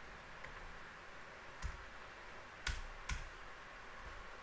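A few isolated clicks of a computer keyboard or mouse being used: three short clicks, the last two close together, over faint room hiss.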